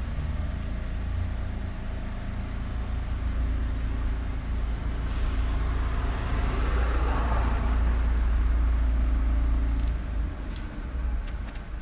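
Street traffic: a low, steady engine rumble, with a vehicle passing whose tyre noise swells and fades around the middle. The rumble drops away about ten seconds in, and a few light clicks follow.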